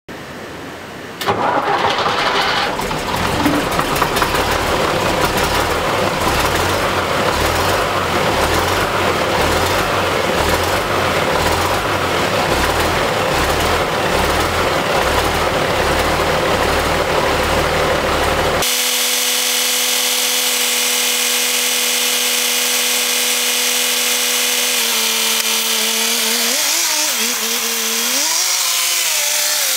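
Old Scania-Vabis truck's diesel engine starting about a second in, then idling with an even, rhythmic low throb. About two-thirds of the way through the sound changes abruptly to a steady pitched drone whose pitch wavers near the end.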